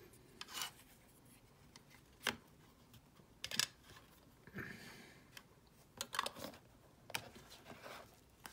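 Trading cards being handled and set down: scattered light clicks, taps and rubs, with a longer rustle about halfway through.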